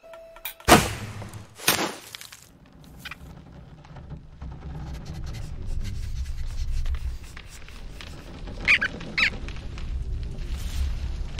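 Animated-film sound effects: two short, sharp sounds about a second apart, fitting the shot from a makeshift wooden bow. Then a low rumble swells, with two short high squeaks near the end.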